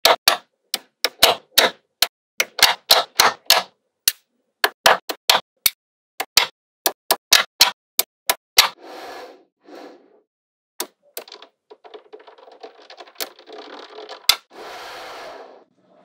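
Small magnetic balls snapping together with sharp clicks, a quick irregular run of them through the first eight or nine seconds as blocks of balls are pressed onto the structure. Then softer rattling of loose balls follows, with scattered ticks, one more sharp click and a short burst of rattling near the end.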